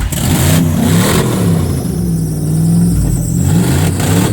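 A vehicle engine running and being revved up and down several times, its pitch rising and falling repeatedly.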